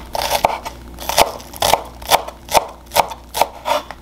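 Chef's knife chopping spring onion on a wooden cutting board, at about two cuts a second. Each cut ends in a short knock of the blade against the board. The chopping stops near the end.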